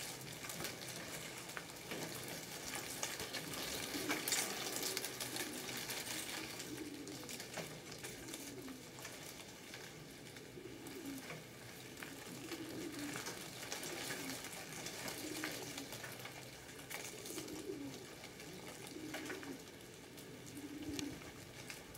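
A pigeon cooing over and over, low short coos about every two seconds, under a soft steady crackle and rustle of hands working yarn.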